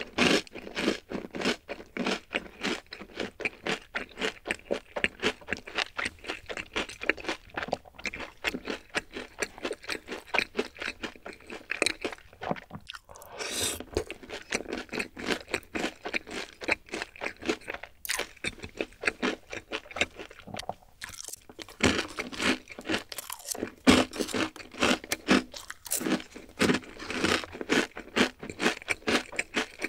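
Close-miked mouth chewing of crunchy food, with rapid wet crunches a few times a second. There are short pauses, each followed by a fresh bite.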